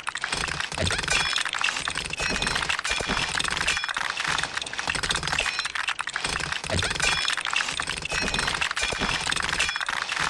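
Loose plastic LEGO pieces rattling and clinking together as a hand rummages through and spreads out a pile of parts: a dense, continuous run of small clicks.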